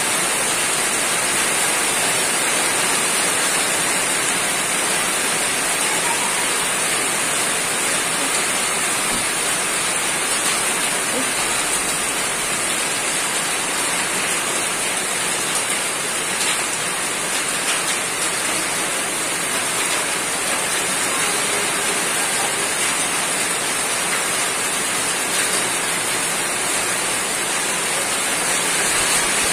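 Steady rain falling on a roof, an even, unbroken patter with a constant high hiss.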